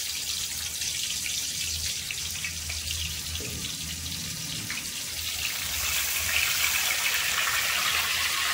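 Hot cooking oil sizzling in a kadai as pieces of marinated chicken are dropped in to fry. The sizzle grows louder about six seconds in, over a steady low hum.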